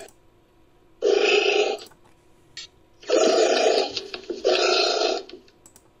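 Edited anteater call recordings used as a creature sound effect: three short, noisy calls, one about a second in and two back to back from about three seconds in, each starting and stopping abruptly.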